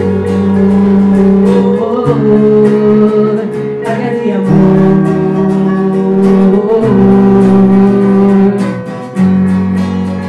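Live band playing a song: acoustic guitar strumming and keyboard chords that change about every two seconds, with singing over them.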